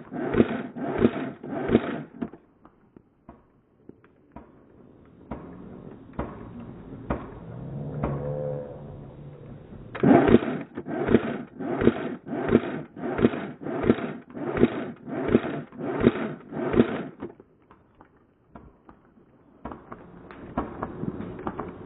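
Footsteps moving at a brisk pace, about two steps a second, each a dull crunching step. They run for the first two seconds, pause, and come back about ten seconds in for some seven seconds.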